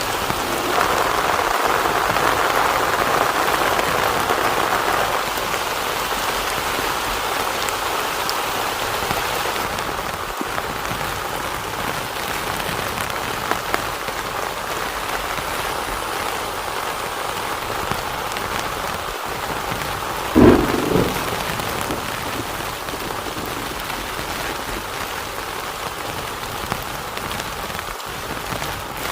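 Heavy rain falling steadily on a tent, a little heavier for the first few seconds. About twenty seconds in there is one sudden clap of thunder.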